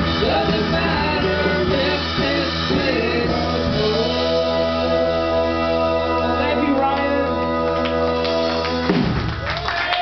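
Live rock band playing, with electric guitar, bass guitar, keyboard, drums and a sung vocal. The song closes on a long held chord that stops about nine seconds in.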